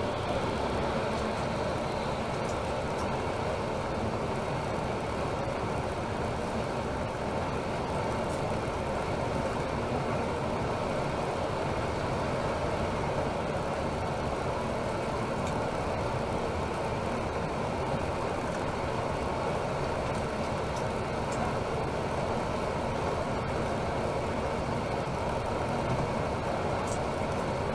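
Temsa Maraton coach cruising on a motorway, heard from aboard: a steady drone of engine and tyre noise.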